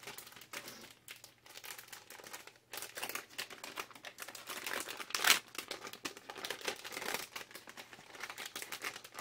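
Clear plastic packaging crinkling as hands work at opening it, an irregular run of crackles, loudest about five seconds in.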